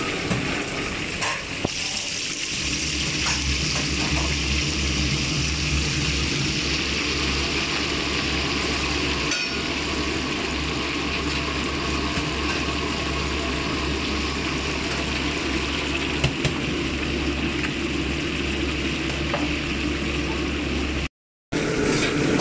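Deep frying: battered grouper sizzling and bubbling in a wok of hot oil, with a few light clicks of the metal ladle against the wok. A steady low hum runs underneath from a couple of seconds in. The sound cuts out for a moment about a second before the end.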